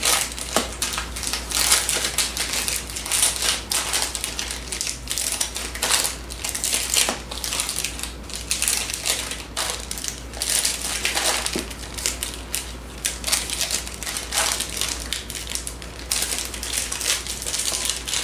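Plastic fruit snack pouches crinkling and being snipped open with scissors, one after another: a continuous crackle of handled wrappers broken by many quick sharp snips.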